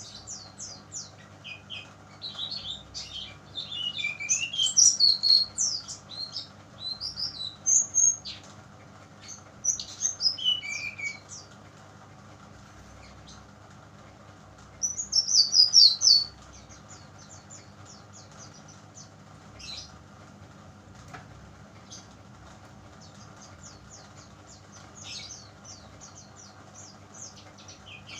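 Young speckled brown-chested jungle flycatcher (sikatan rimba dada coklat) singing: several loud bursts of high, quick twittering phrases in the first half and another about two thirds of the way through, with runs of fast, thin repeated notes in between.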